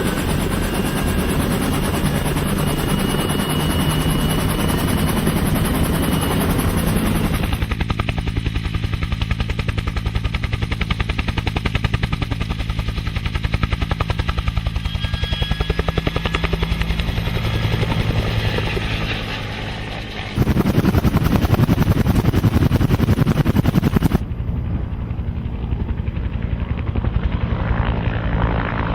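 Helicopter in flight: the rapid, steady beat of the rotor blades over the drone of the engine. The sound changes abruptly three times, as if cut between different recordings.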